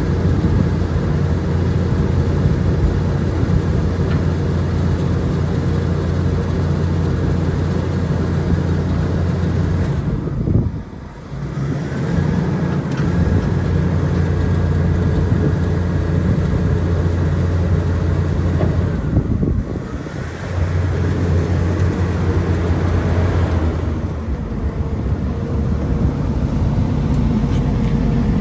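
Diesel engine of a Vögele Super 1900-2 asphalt paver running steadily, loud and low. The sound drops away briefly twice, about ten and nineteen seconds in.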